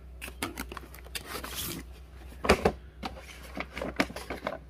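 Cardboard firework boxes being handled and shifted: a run of short knocks, scrapes and rustles, with a louder thump about two and a half seconds in.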